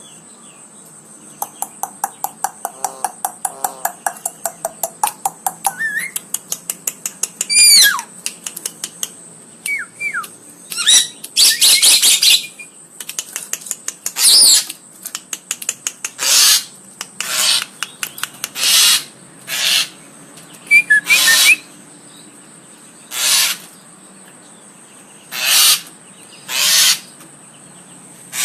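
Javan myna calling: a rapid run of clicks, a whistled downward glide, then a series of loud harsh rasping calls about every second or two. A faint steady high tone runs underneath.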